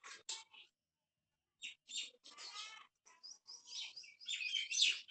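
High-pitched animal chirps and squeaks in short bursts, with a pause of about a second near the start and a denser, louder run of calls near the end.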